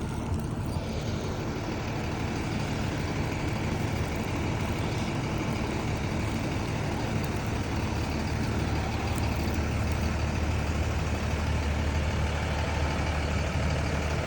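Idling vehicle engines of traffic stuck on an icy road, a steady low hum that grows slightly louder after the first couple of seconds.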